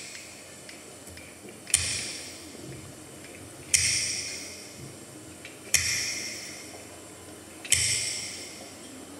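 Background music built on a bright, ringing hit that repeats about every two seconds, each one dying away over about a second.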